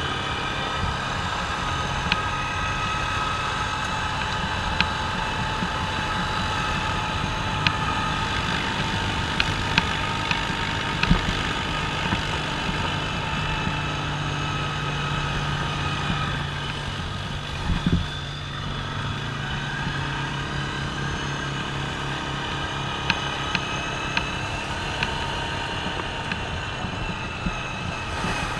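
Off-road vehicle engine running steadily at a cruise while riding over a gravel creek bed, with scattered sharp ticks and a couple of knocks a little past halfway.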